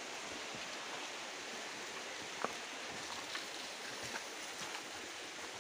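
Steady rush of flowing water, with a single light click about halfway through.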